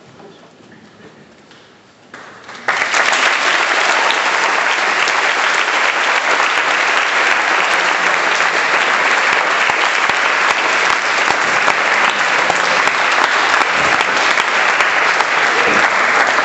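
Audience applauding, starting suddenly about three seconds in as a dense, steady clapping that holds at full strength.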